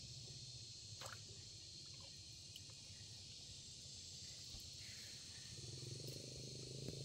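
Faint, steady chirring of insects: a high hiss with a thin, unbroken tone in it. There is a single soft click about a second in, and a faint low hum builds near the end.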